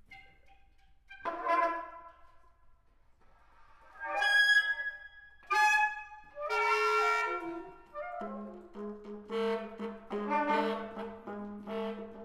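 Saxophone quartet improvising free jazz: a few separate loud bursts of high, pitched notes, then, about eight seconds in, a low held note begins under quick repeated short notes.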